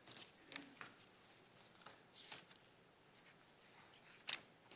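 Faint rustling of thin Bible pages being turned by hand, a few soft rustles with one sharper flick near the end.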